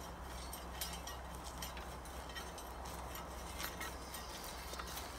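A two-row garden gridder rolling over a soil bed, heard faintly as scattered light clicks over a steady low hum.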